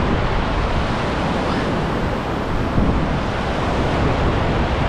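Fast, powerful river current rushing: a loud, steady wash of water, with wind buffeting the microphone.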